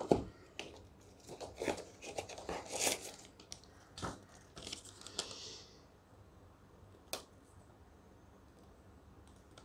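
Power bank packaging being handled: irregular rustles and small clicks for about six seconds, then one sharp click about seven seconds in.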